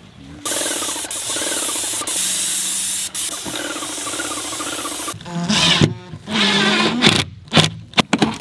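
Paint sprayer hissing in long passes, broken by a few brief stops. About five seconds in, it gives way to a cordless drill running in short bursts as it drives screws.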